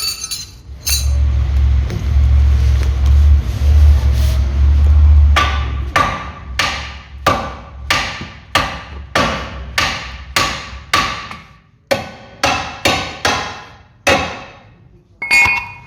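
A hammer striking the steering knuckle again and again, about two blows a second with a metallic ring, to knock the suspension ball joint loose from the knuckle. Before the blows begin, the first few seconds hold a loud low rumble.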